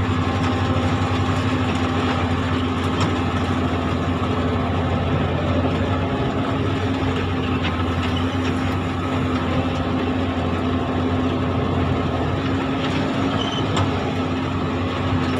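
Komatsu hydraulic excavator's diesel engine running steadily with a constant hum, heard from inside the operator's cab.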